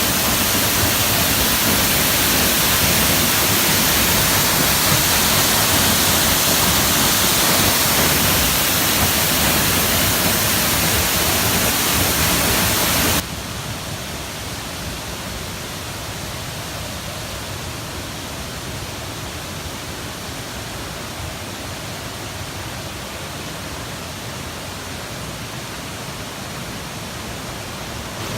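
Waterfall rushing, a steady wide hiss of falling water; about thirteen seconds in it drops suddenly to a quieter level and goes on steadily.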